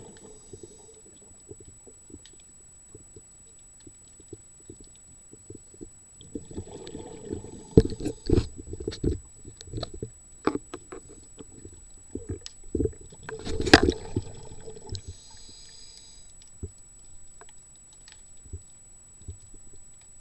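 Water gurgling and sloshing in two louder spells about six seconds apart, with sharp knocks mixed in, over a quieter low rumble.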